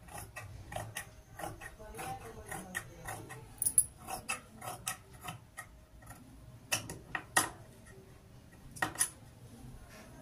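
Large steel tailor's scissors snipping through cotton blouse fabric: a quick run of blade clicks as the sleeve is cut out, with several louder clacks in the second half.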